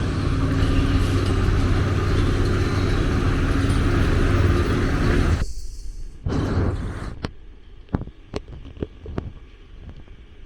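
A motor vehicle's engine running with a steady low hum under traffic-like noise, cutting off suddenly about five and a half seconds in; what follows is quieter, with a series of sharp knocks.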